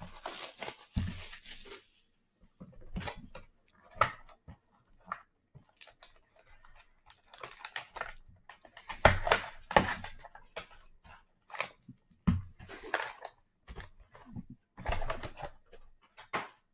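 Hands unwrapping and opening a hobby box of trading cards: crinkling wrapper, tearing and cardboard handling come in irregular bursts and clicks, densest in the first two seconds.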